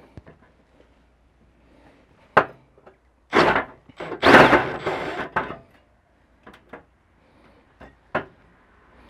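Cordless drill running a hole saw of about 98 mm into a car's thin sheet-metal wing in short, separate bursts, the longest near the middle, with sharp clicks as the saw teeth catch the metal.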